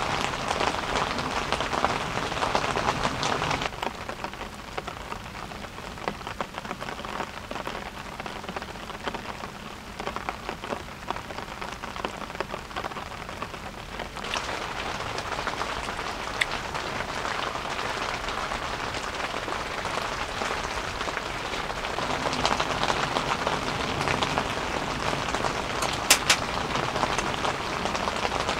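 Heavy rain falling steadily on a tent, a dense patter of drops. It softens from about four seconds in and builds again later, with a couple of sharp clicks near the end.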